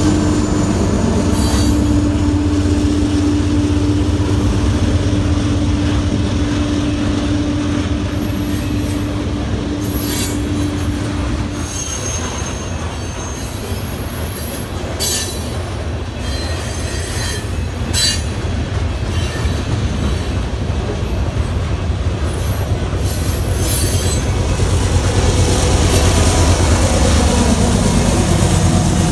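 Freight train passing close by. A diesel locomotive's engine hum goes past for the first twelve seconds or so, then covered hopper cars rumble over the rails with short high wheel squeals. The sound builds again near the end as another diesel locomotive comes alongside.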